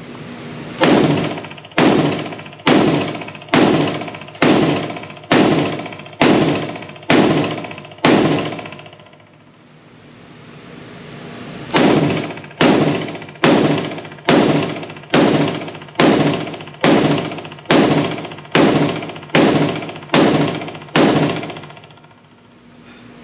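Springfield Hellion 5.56 semi-automatic bullpup rifle firing: about nine shots at a steady pace of about one a second, a pause of a few seconds, then about a dozen more at the same pace, each with a short trailing echo.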